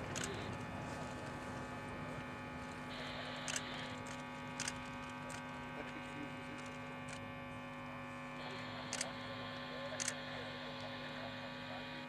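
A steady electrical hum made of several held tones that do not change in pitch, with a higher buzzing layer that comes and goes and a few faint clicks.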